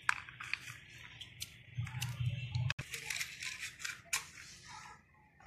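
Small knife cutting through crisp roasted almonds against a nonstick pan, making a run of sharp irregular clicks and cracks. The clicks thin out near the end.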